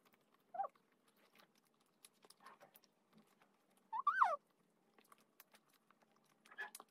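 Soft chewing of a mouthful of pork siomai with the mouth closed, with many small mouth clicks. Two short high hums of enjoyment rise and fall, a small one just after half a second in and a louder, longer one about four seconds in.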